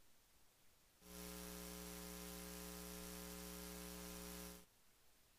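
Faint, steady electrical mains hum from the hall's sound system, a low buzz with a stack of overtones that switches on suddenly about a second in and cuts off just as suddenly about three and a half seconds later.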